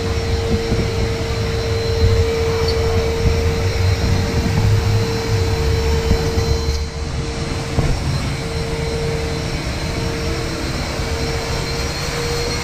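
Steady machine drone: a low rumble under a constant mid-pitched hum, dipping briefly about seven seconds in.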